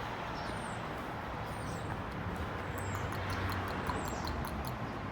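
Small birds chirping: thin, high, downward-slurred calls about once a second, then a quick run of short high ticks from about halfway through. Under them is a steady background hiss and rumble.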